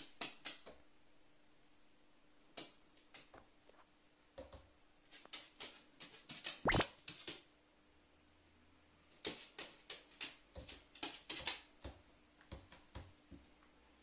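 A pet carrion crow moving about on a wooden floor: irregular sharp clicks and taps in clusters, with one louder knock about halfway through.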